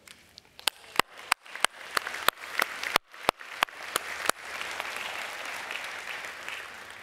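Audience applauding: at first a string of sharp, separate claps about three a second, then from about four seconds in a crowd clapping steadily, fading near the end.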